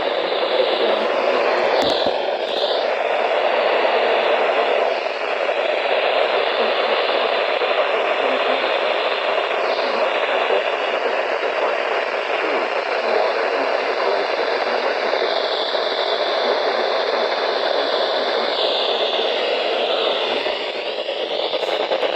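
Steady radio static hiss from a weakly received NOAA Weather Radio signal, with a few swishing fades as reception wavers.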